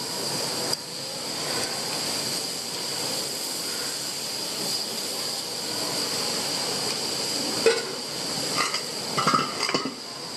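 Food sizzling on a flat-top griddle with a steady hiss. Metal spatulas or tongs clink and scrape against the griddle a few times near the end.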